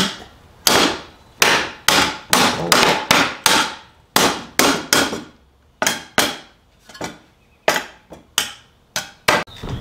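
Claw hammer striking an electrical box to drive it into a tight hole in a wooden board: about twenty sharp knocks, roughly two a second, with a few short pauses.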